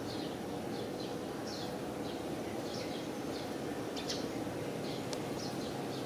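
Small birds chirping in short, high, slightly falling notes about twice a second, over a steady low background hum.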